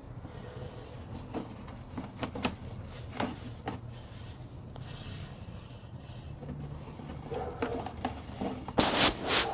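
Scattered clicks, knocks and rubbing over a low steady hum, with a louder rough burst of noise near the end.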